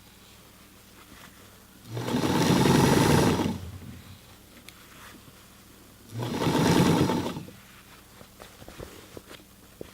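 Motor-driven Singer 237 sewing machine stitching through a denim jeans hem in two short bursts, about a second and a half and then about a second long, with quiet stretches between them.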